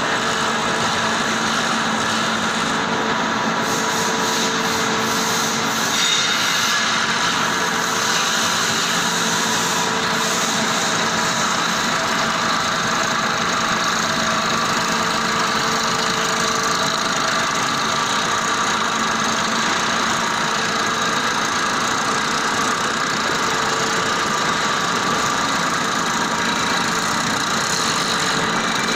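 Electric-motor-driven crawler excavator (37 kW explosion-proof motor) running steadily, a constant mechanical hum with several held tones and no change in level.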